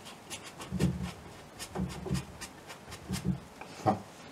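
A paintbrush stroking across a canvas in a few short, soft scrubbing strokes, about one a second.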